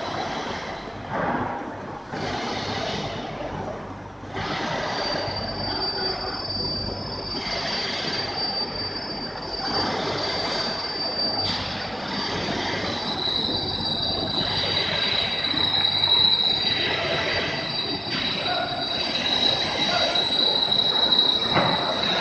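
ALLES ALPD1540 high-speed CNC plate drilling machine running and drilling metal plate: a steady mechanical noise with a high-pitched whine that comes in about five seconds in, joined by a second, slightly lower whine later on.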